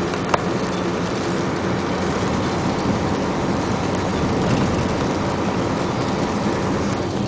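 Steady engine hum and tyre noise of a vehicle driving on a wet road, heard from inside the cab. There is one brief click just after the start.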